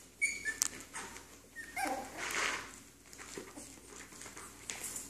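Cairn terrier puppies whimpering and yipping as they play, with short high cries near the start and just before two seconds in, and light scuffling between.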